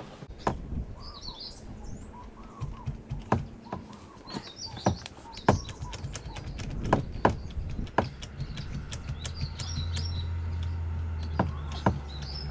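Birds chirping, with about a dozen sharp, irregular clicks and knocks from hand work under the back of the car. A low steady hum comes in at about nine and a half seconds.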